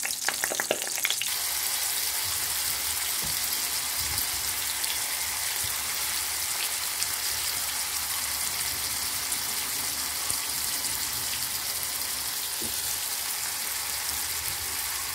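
Sliced onions frying in oil in a stainless steel pan, a steady sizzle. There are a few sharp clicks in the first second.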